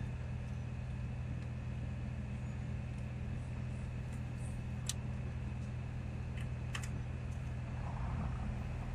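Steady low hum of a running car heard inside the cabin. A few small sharp clicks, about five and seven seconds in, come from the wiring harness plugs at the back of the head unit being handled.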